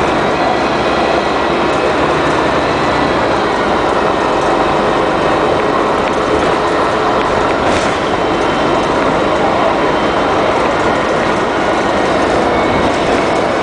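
Orion V transit bus with a Detroit Diesel Series 50G natural-gas engine and Allison B400R automatic transmission running steadily, a loud even mix of engine, drivetrain and road noise with a faint steady whine.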